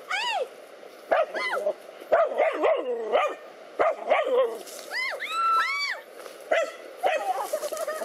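Dogs barking and yelping in quick, short calls that rise and fall in pitch: the agitated barks of dogs attacking a snake.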